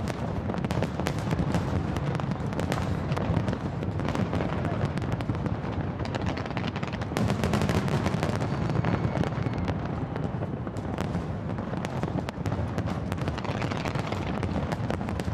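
Aerial fireworks bursting continuously: a dense run of sharp bangs and crackles over a steady low rumble.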